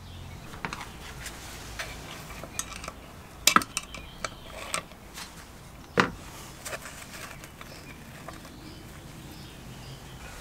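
Scattered light metallic clinks and taps as engine internals are handled inside a small engine's crankcase, the sharpest a quick cluster about three and a half seconds in and a single knock at six seconds.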